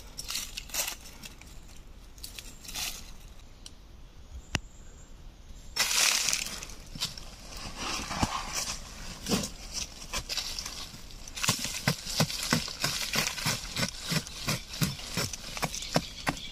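Digging into soil at the base of a tree: scraping and rustling of dirt and dry leaves, then from about eleven seconds in a quick run of machete strikes chopping into the earth, roughly three a second.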